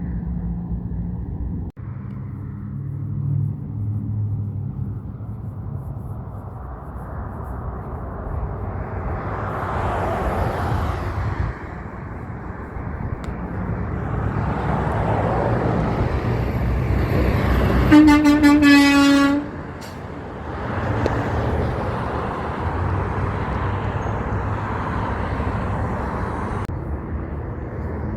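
Heavy trucks passing one after another, their engine and tyre noise swelling and fading; about two-thirds of the way through, one sounds a loud air horn for about a second and a half.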